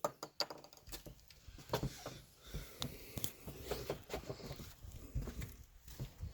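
Scattered light clicks and rustling from handling, with no gunshot.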